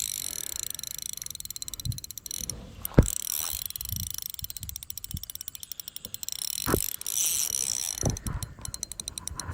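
Fishing reel drag clicking in a fast, steady ratchet as a hooked fish pulls line off an ultralight rod, with a couple of sharp knocks from handling the rod.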